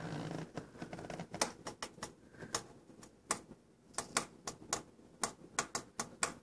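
Sharp, irregular clicks and taps, two or three a second, from a cat batting at a stick toy on a carpeted cat tree.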